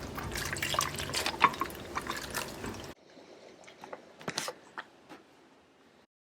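Water splashing and dripping with many small clicks. About 3 seconds in it cuts abruptly to quieter, scattered drips.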